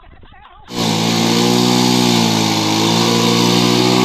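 ATV (quad bike) engine running hard while driven through mud, with a steady pitch that sags slightly in the middle and then climbs back. It cuts in abruptly under a second in, after faint voices.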